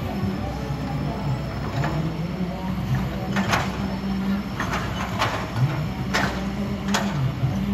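Kobelco SK200 hydraulic excavator's diesel engine running steadily under work, with about six sharp knocks or clanks from the machine at irregular intervals.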